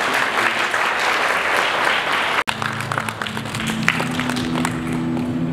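Audience applauding with dense clapping. About halfway through, the sound cuts abruptly and background music with held notes comes in, with lighter scattered clapping continuing over it.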